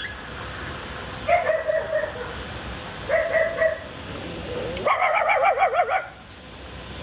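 Three pitched, animal-like calls, about a second or less each, the third one longer with a wavering pitch.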